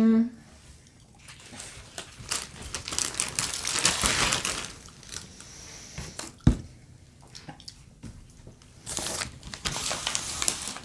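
Plastic candy wrappers and snack bags crinkling and rustling as they are handled and gathered on a tabletop, in two spells. A single sharp knock comes about six and a half seconds in.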